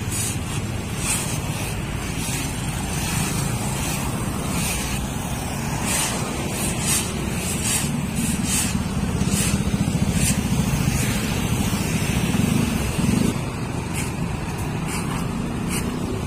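Motor traffic running past, a steady low engine rumble that swells for a few seconds midway as a vehicle goes by close. Over it, a plastic leaf rake scrapes grass clippings across the asphalt in short repeated strokes.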